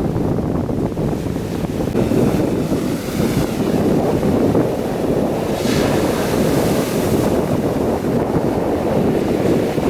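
Black Sea surf breaking and washing on the beach, with wind rumbling on the microphone; a wave washes in with a louder hiss about halfway through.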